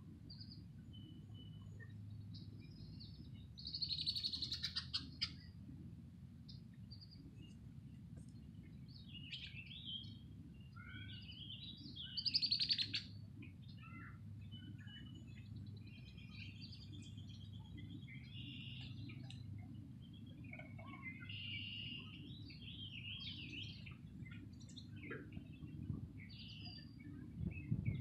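Songbirds chirping and singing, with a loud rapid trill about four seconds in and another loud call about twelve seconds in, over a low steady rumble.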